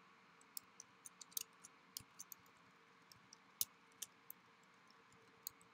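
Keys being typed on a computer keyboard: faint, uneven clicks, about three a second, with a short pause near the middle.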